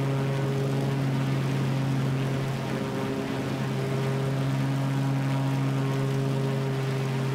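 Pitts Special biplane's piston engine and propeller running steadily, a constant-pitched drone with no change in power.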